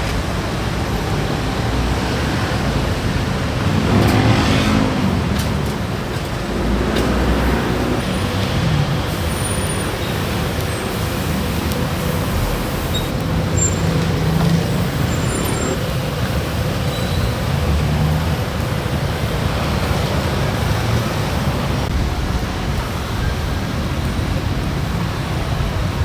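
Steady road traffic noise from passing vehicles, with one engine passing louder about four seconds in.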